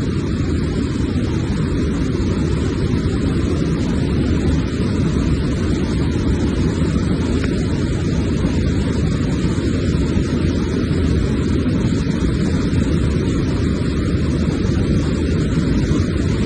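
Waterfall roaring: a loud, steady rush of falling water, heaviest in the low range.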